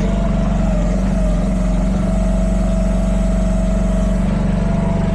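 Chinese mini excavator's small lawnmower-type gasoline engine running steadily, with a steady whine over it.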